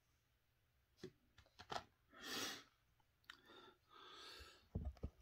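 Faint, scattered clicks of small plastic transmission parts being handled at the bench, with soft hissy rustling between them and a quick cluster of louder clicks near the end.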